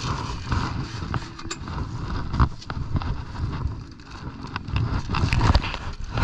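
Irregular knocks and clatter of cordless power tools being picked up and handled, over low rumbling and rustling from a body-worn microphone being brushed by clothing. No saw motor is running.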